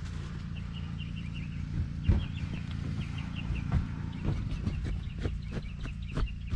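Chickens clucking in short repeated runs, over a steady low hum, with several sharp knocks, the loudest about two seconds in.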